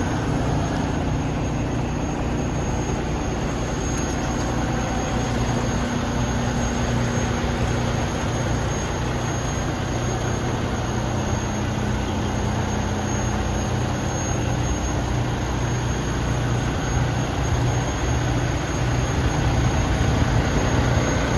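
Cummins ISX inline-six diesel of a 2017 Kenworth T680 idling steadily, a little louder near the end.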